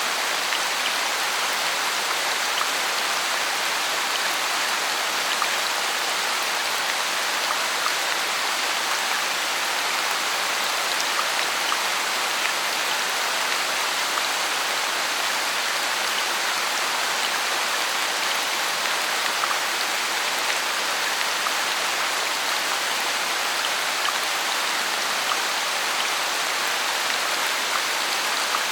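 Heavy rain falling steadily, with many small drips pattering through the constant hiss.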